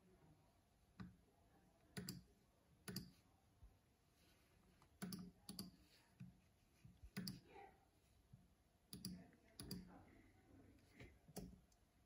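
Faint, irregular clicking: about a dozen short, sharp clicks, some in quick pairs, over near silence.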